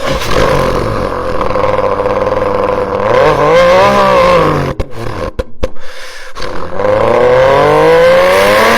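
A man imitating a turbocharged supercar engine with his voice: a steady engine drone, a rev that swells up and falls back about four seconds in, a few clicks and sputters, then a long climb in revs near the end.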